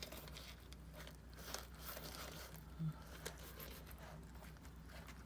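Cat crunching dry kibble from a stainless steel bowl: faint, irregular crunches and clicks, one a little louder about three seconds in.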